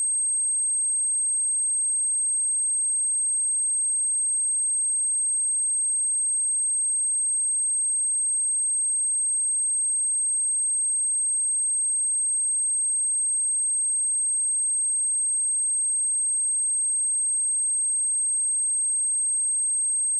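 Steady high-pitched 8391 Hz sine-wave test tone, held at one pitch and level.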